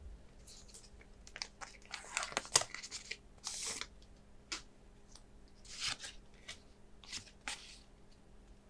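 The foil wrapper of a Pokémon card booster pack being torn open and crinkled by hand, in a string of short crackly rips and rustles.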